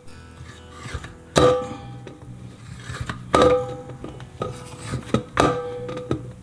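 Kitchen knife cutting through a log of dough and striking the stainless steel plate beneath: three loud ringing clinks about two seconds apart, with lighter taps between.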